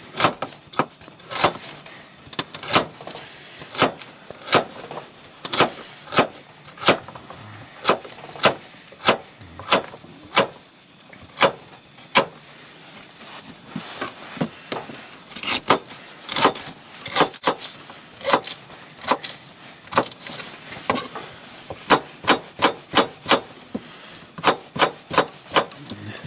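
Knife chopping carrots and celery on a plastic cutting board: a string of sharp knocks of the blade on the board, one or two a second, quickening into faster runs in the last few seconds.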